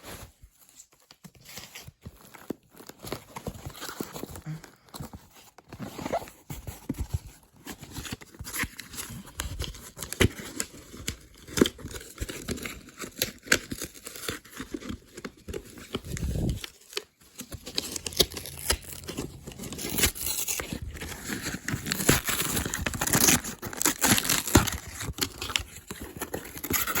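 A package being opened by hand: tape and paper tearing, with packaging crinkling and rustling in many short scrapes and clicks. It gets busier and louder in the last third.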